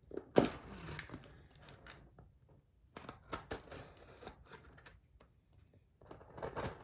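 A cardboard shipping box being opened by hand: tape and cardboard rustling and scraping in three short bouts with pauses between.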